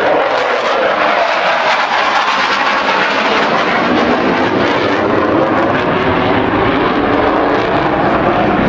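Jet noise from a HAL Tejas fighter's single General Electric F404 turbofan in flight, a loud, steady noise whose pitch sinks over the first few seconds as the jet passes.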